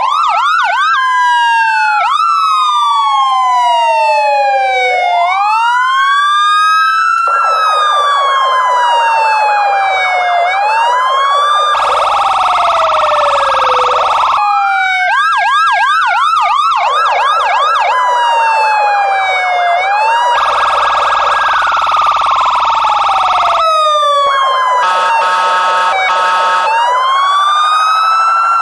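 Loud police siren cycling through its patterns: a slow wail rising and falling over several seconds, fast repeated yelp sweeps, and a few stretches of steady blaring tone.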